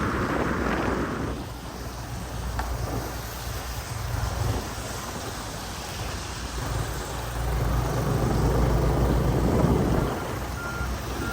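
Motorbike riding in the rain: a low engine and wind rumble over rain noise, swelling for a few seconds in the latter half. Near the end, a row of short, high, evenly spaced beeps like a vehicle's reversing alarm.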